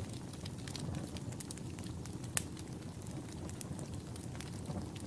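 Wood fire crackling: scattered sharp pops over a low, steady rumble, with one louder pop about halfway through.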